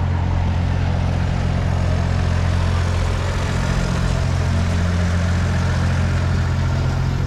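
Engine of a trailer-mounted generator running steadily: an even, low hum that does not change, over a haze of street noise.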